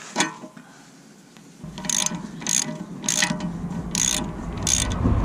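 Hand socket ratchet clicking in short runs, about six back-swings well under a second apart, as it unscrews an axle drain plug. A low rumble runs underneath.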